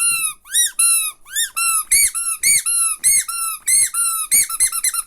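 Squishy rubber three-eyed alien toys fitted with squeakers, squeezed over and over. Each squeeze gives a high squeak that rises and falls in pitch, about three or four a second, coming faster near the end.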